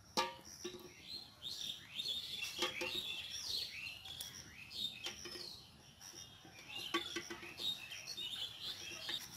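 Small birds chirping and calling over and over in the background, with a few sharp clicks as duck eggs are set down in an aluminium pot of water.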